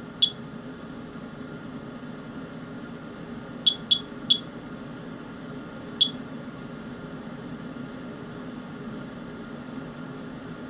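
Radiation monitor (Geiger counter) chirping: five short, high beeps at irregular, random intervals, three of them close together near the middle, each one a detected count. The rain sample is reading above background.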